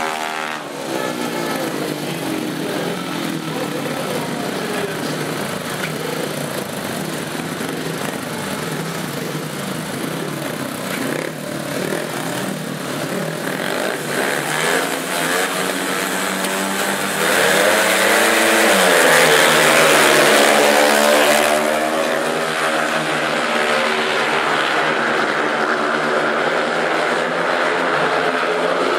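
Speedway motorcycles' 500 cc single-cylinder methanol engines revving at the start gate. A little over halfway through the bikes launch together and get louder, their pitch sweeping up and down before settling into a steady, fast run.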